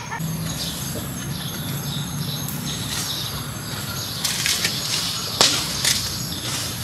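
Steady outdoor background noise with a low hum, broken by a cluster of sharp snaps and crackles about four to six seconds in, the loudest about five and a half seconds in.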